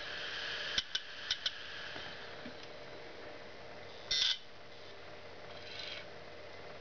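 Opened Western Digital IDE hard drive running with the click of death: a faint steady whir from the spinning platter, four sharp head clicks about a second in, then a short buzzing burst a little after four seconds and a fainter one near six seconds as a thumb presses on the spinning platter. The clicking is the heads trying and failing to calibrate on a dead drive.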